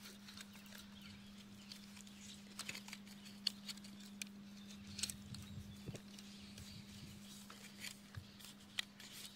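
Faint handling noises: scattered light clicks and rustles as a cardboard box of golf balls is handled beside a fabric golf bag, over a faint steady low hum.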